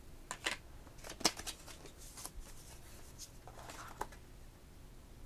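Thin card and paper packaging inserts being handled: faint rustling with a few light taps and clicks, the sharpest a little over a second in.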